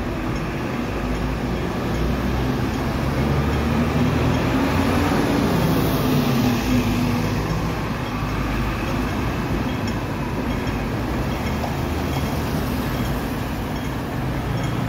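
City street traffic: vehicle engines running and passing, a steady low hum that grows heavier around four to seven seconds in.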